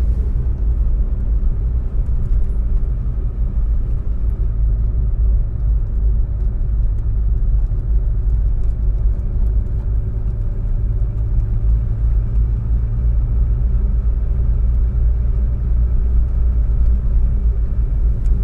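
Volkswagen Golf II with a diesel engine, heard from inside the cabin while driving over a bad, uneven road. A steady, heavy low rumble of engine and road noise, with light clicks and rattles scattered through it.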